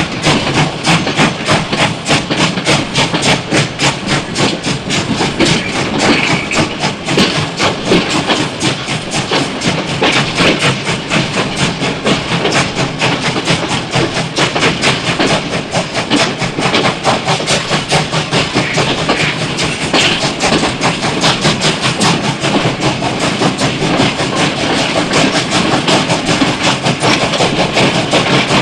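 Steam locomotive chugging along at a steady pace, heard from a doorway of its train, with a rapid, even rhythm of chuffs and rail clatter.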